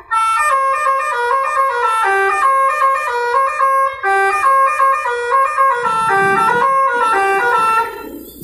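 Bus 'telolet' musical horn playing a quick tune of short stepped notes. A low rumble joins under it about six seconds in.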